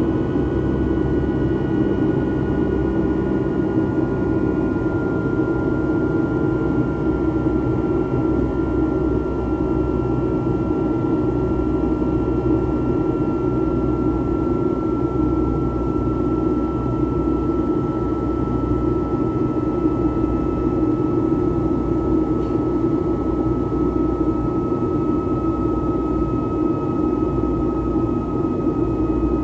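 Steady cabin noise of a Boeing 757-200 in flight, its Rolls-Royce RB211-535E4 engines running with a thin high whine that slowly falls in pitch over the even rush of engine and airflow noise.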